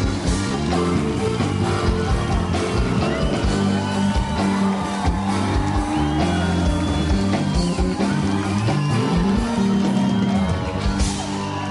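Live pop band playing an instrumental passage: a steady drum beat and bass line under a melody that slides between notes.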